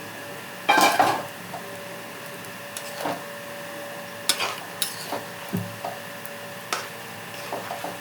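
Spoon stirring chicken in a cooking pot, scraping and knocking against the pan: one long scrape about a second in, then scattered short knocks and scrapes.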